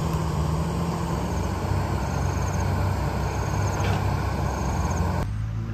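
Heavy diesel engine of earthmoving machinery running steadily, a loud low drone with rattly noise over it; it cuts off abruptly about five seconds in.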